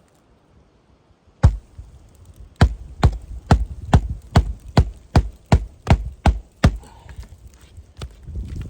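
Hammer driving a roofing nail by hand through an asphalt shingle: one blow, then a run of about eleven quick, even blows, roughly two and a half a second.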